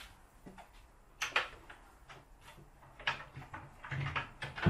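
Two hinged plywood doors of a wall-mounted toolbox cabinet being swung shut: a string of wooden knocks and clicks, building to the loudest thump at the very end as the doors close.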